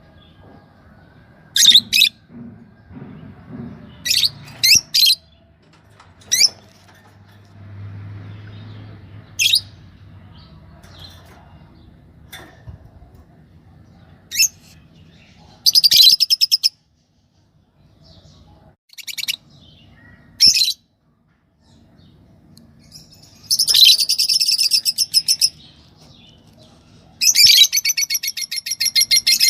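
A pair of yellow Fischer's lovebirds calling: sharp, high single chirps scattered through the first half, then rapid chattering trills, the last two lasting about two seconds each.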